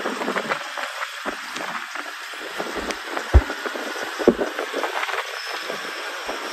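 Road noise inside a moving vehicle: a steady rushing hiss with small rattles and clicks, and two short low thumps a little past halfway.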